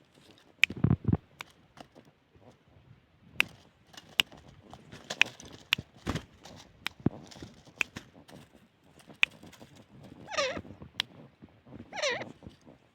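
A teetar (francolin) gives two short, wavering calls about a second and a half apart near the end. Before them come scattered sharp clicks and taps, and a low thump about a second in.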